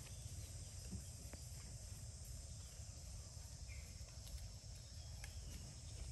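Quiet outdoor ambience: a steady low wind rumble with a few faint crackles from the dry leaf litter and one faint high chirp.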